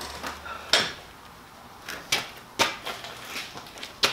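Handling and footstep knocks as a man gets up from a wheeled office chair and walks off across a concrete shed floor: a handful of sharp, uneven knocks and taps, the loudest about three-quarters of a second in and right at the end.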